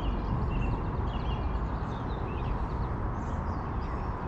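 Small birds chirping and twittering again and again over a steady low rumble.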